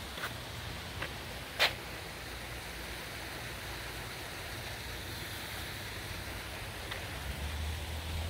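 Water running steadily over a small landscaped garden waterfall, an even splashing rush. A sharp tap sounds about a second and a half in, and a low rumble comes in near the end.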